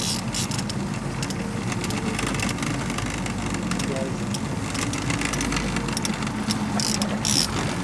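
Boat engine running steadily at trolling speed, a low hum, with two short bursts of hiss in the second half, likely splashing water as a fish is brought to the landing net.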